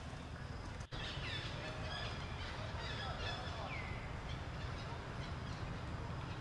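Outdoor ambience of birds chirping, short calls and a few falling whistles, over a steady low rumble, with a brief dropout about a second in.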